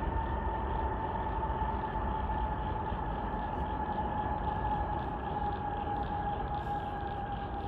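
Jet airliner engines heard from afar: a low rumble under a steady whine that slides slowly down in pitch.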